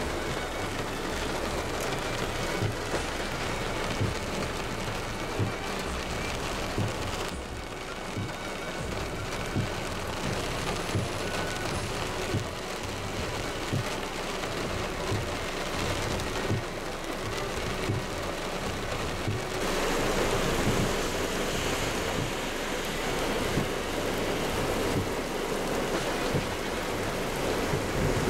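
Heavy rain pouring down in a dense, steady hiss, with irregular low thumps throughout. The hiss thins briefly about seven seconds in and grows louder about twenty seconds in.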